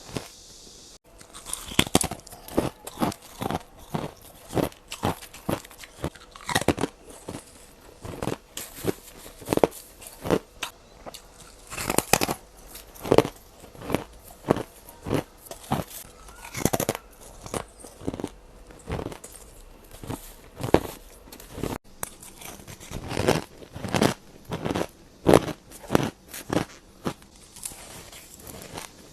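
Ice being bitten and crunched between the teeth, one sharp crunch after another, about one or two a second.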